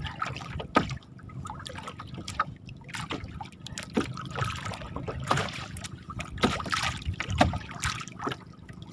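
Choppy lake water lapping and splashing against the side of a small wooden boat, with scattered short knocks and splashes.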